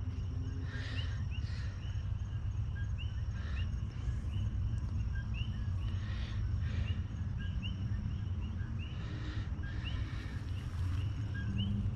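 Outdoor pondside ambience at dusk: many short, high chirps repeating about every half second from small animals, over a steady high hum and a constant low rumble.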